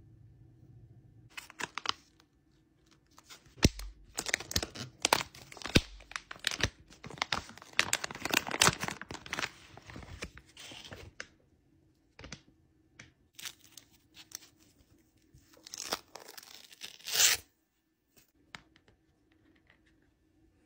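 Clear plastic film on a new iPod touch being peeled and crinkled by hand: bursts of crackling and tearing, thickest in the first half, sparse after, with one last loud crinkle near the end.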